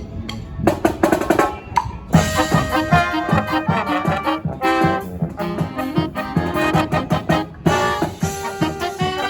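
Live marching brass band with drums playing: drum strokes open it, and the full band of brass and drums comes in about two seconds in and plays on with a steady beat.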